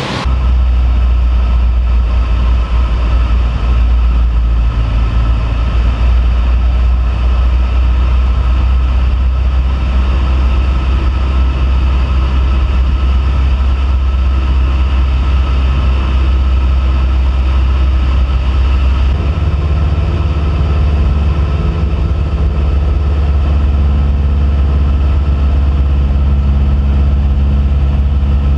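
Cessna 172P's four-cylinder Lycoming engine and two-blade propeller droning steadily in flight, with a slight shift in pitch about two-thirds of the way through.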